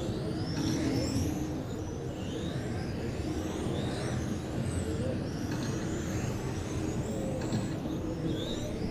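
Several electric RC touring cars racing, their brushless motors whining up and down in pitch as they accelerate and brake.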